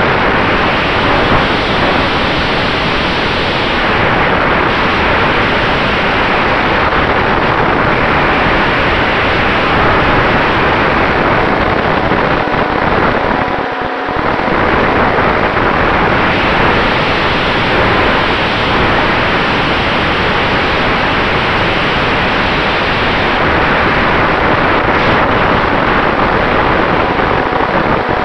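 Airflow rushing over the microphone of an E-flite P-47D Razorback RC warbird in flight, with the steady hum of its Cobra brushless electric motor and propeller underneath. The rush eases briefly about halfway through, then comes back.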